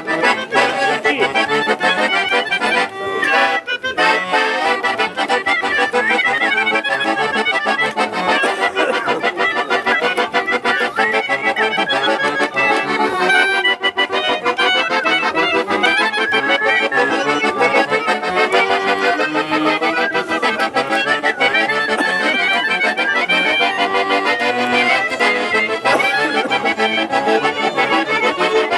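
Accordion playing a lively traditional tune with fast-moving melody notes over held chords.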